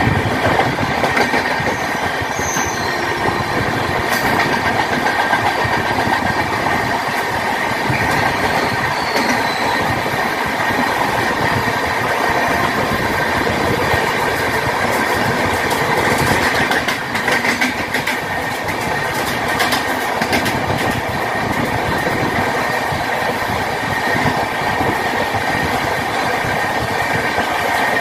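Passenger train running at speed, its wheels clattering over the rail joints with a steady rush of track noise and a faint steady high whine, heard close alongside a line of standing goods wagons.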